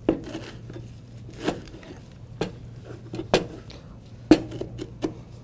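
Kitchen utensils knocking: a knife and a spatula striking a cutting board and a glass mixing bowl while guacamole is mixed, about six sharp knocks roughly one a second.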